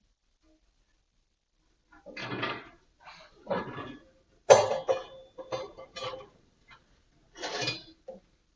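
Steel deflector (baffle) plate inside a Schmid Ekko steel firebox being shifted and lifted out: a series of metal clanks and scrapes starting about two seconds in. The loudest clank comes about halfway and is followed by a brief ringing tone.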